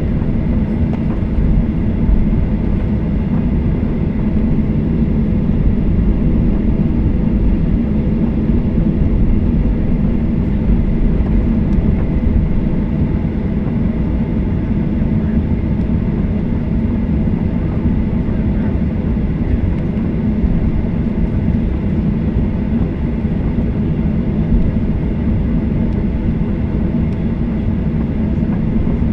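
Steady low rumble inside a Boeing 737-800's cabin as the airliner taxis after landing: engines at idle and wheels rolling on the taxiway.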